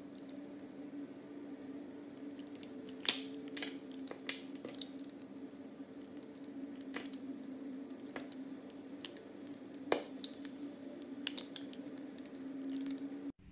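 Knife cutting through a bar of clear soap with embedded soap chunks: scattered crisp clicks and snaps as the blade goes through, the sharpest about three seconds in and about eleven seconds in, over a low steady hum.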